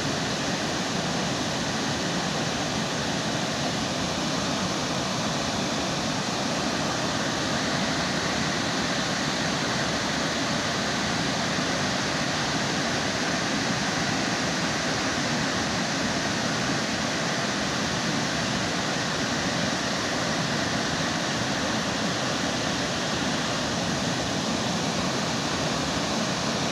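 Waterfall roaring steadily: the constant rush of water falling and crashing into the pool below.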